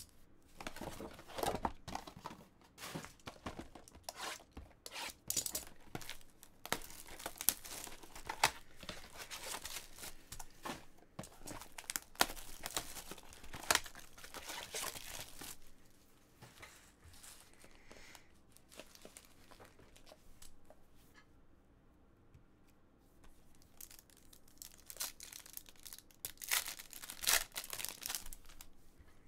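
Cardboard box flaps and foil trading-card pack wrappers being torn open and crinkled by hand, in bursts of crackling with a quieter stretch about two-thirds of the way through.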